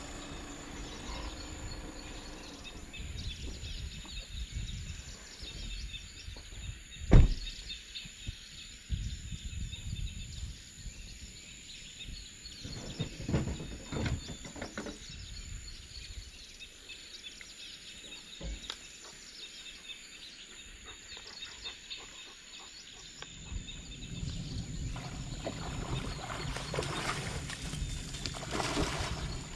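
Outdoor ambience with rustling and handling noises, and one sharp knock about seven seconds in, the loudest sound here; the rustling grows louder near the end.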